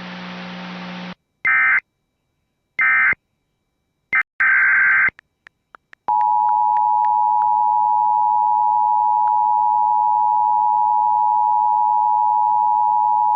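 Emergency Alert System signal. First come several short, screeching digital data bursts, then, from about six seconds in, the steady two-tone EAS attention signal, which holds without a break.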